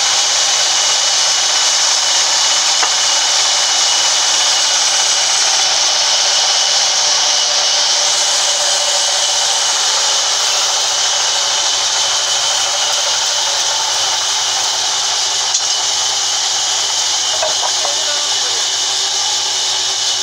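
Large band saw mill running steadily: a loud, even hiss with a thin high whistle through it and no change in load.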